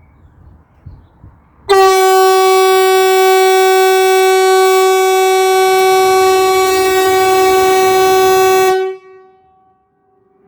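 Kockums typhoon civil-defense air horn (the 'Hesa Fredrik' warning signal) sounding one loud, steady, low blast at a single pitch. It starts abruptly, holds about seven seconds and cuts off. A fainter horn at the same pitch carries on after it: part of a public warning-system test.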